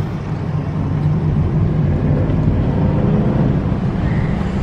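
Car driving along a road: steady engine and road noise with a low drone.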